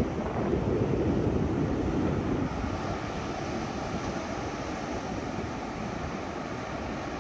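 Wind buffeting the microphone over ocean surf, with a deeper rumble that fades out about two and a half seconds in.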